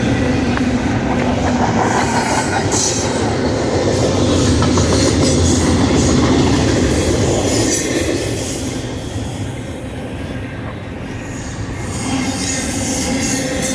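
Freight train cars rolling past, a steady rumble of wheels on rail with high wheel squeals now and then.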